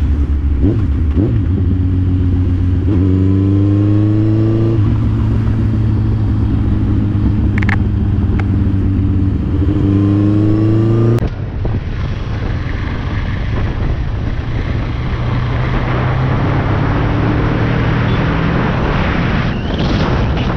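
A motorcycle engine under hard acceleration, its pitch rising twice as it pulls through the revs. After a sudden change about eleven seconds in, a different motorcycle runs at steady speed over a loud rushing noise.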